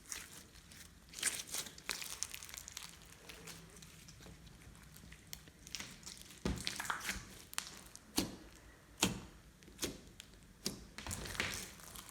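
Hands squishing and poking glossy slime, giving sticky clicks and crackly pops at uneven intervals, with a run of sharper clicks in the second half.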